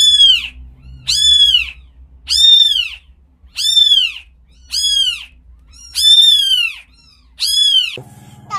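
Newborn kittens mewing: about eight thin, high-pitched cries, each rising and then falling in pitch, repeated a little over a second apart.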